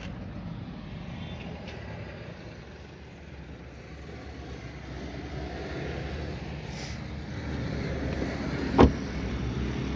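Low steady rumble of a motor vehicle running, growing louder over the last few seconds, with a single sharp thud near the end.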